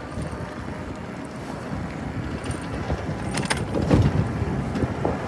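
Low rumbling road and wind noise from riding along a wet, slushy street; it gets louder about four seconds in.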